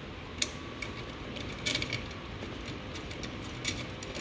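Small, irregular metallic clicks and taps of a steel screw, washer and hex driver being handled and turned into an aluminium extrusion frame.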